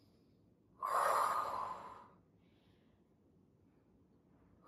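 A woman's forceful exhale through the mouth: one breathy rush about a second in, lasting just over a second and fading out. This is effort breathing while doing bodyweight reverse lunges. Another exhale begins right at the end.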